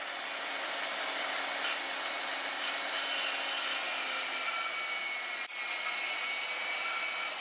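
Portable band saw, mounted upright in a stand, running and cutting through 1/8-inch steel angle iron as the piece is fed into the blade. A steady cutting noise with a faint high whine, dipping briefly about five and a half seconds in.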